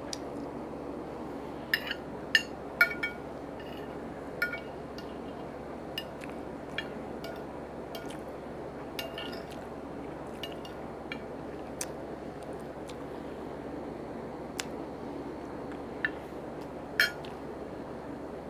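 Eating utensil clinking against dishware: a dozen or so scattered short clinks, the sharpest a few seconds in and again near the end, over a steady low room hum.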